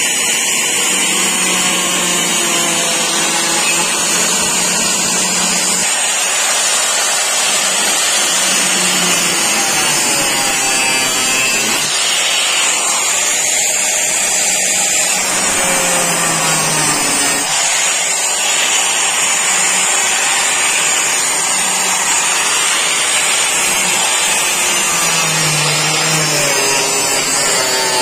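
Handheld angle grinder with a cutting disc running continuously, cutting through screws too corroded to unscrew; its pitch sags and recovers as the disc bites and frees.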